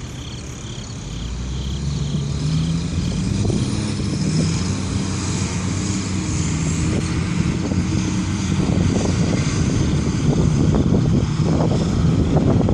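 Heavy military truck engine running as it drives past on the road, growing louder over the first few seconds, with tyre and road noise.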